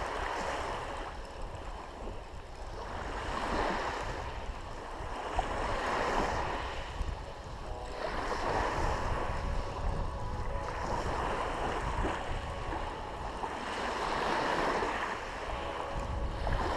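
Small waves washing onto a pebble beach, the wash swelling and fading every few seconds, with wind rumbling on the microphone.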